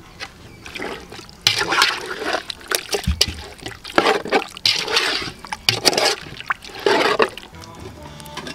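Chicken wings in a thin coconut-milk curry being stirred hard with a metal slotted spoon in a metal pot: wet sloshing in several surges, with clicks of the spoon against the pot. It starts about a second and a half in and stops about a second before the end.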